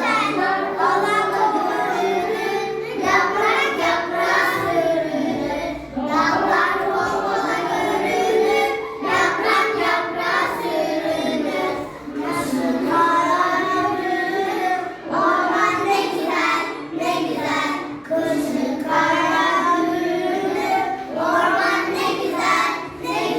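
Children singing a song together, in phrases broken by short pauses about every three seconds.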